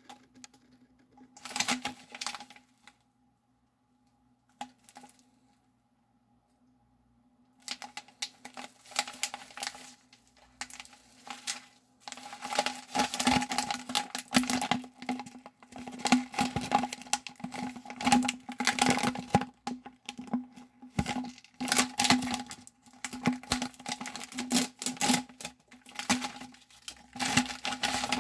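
Dense, irregular tapping and clattering of kitchen work at a counter, with a steady low hum under it. It starts with a few taps, goes almost quiet for several seconds, then runs busily from about seven seconds in.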